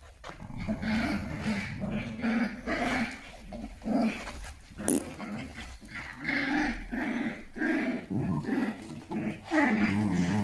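Dog growling in play, a string of short rough growls with brief pauses between them.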